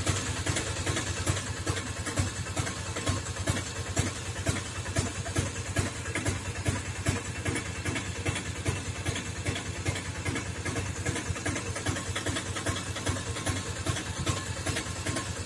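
An engine running steadily at idle, with a rapid, even pulse.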